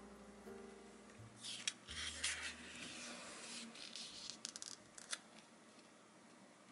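Paper pages of a small printed booklet being turned by hand: a stretch of rustling with several crisp flicks, from about one and a half to five seconds in.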